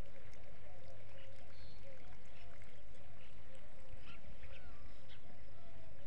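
Open-air ambience: a steady low rumble with a faint wavering tone and scattered short, high chirps; no goat calls stand out.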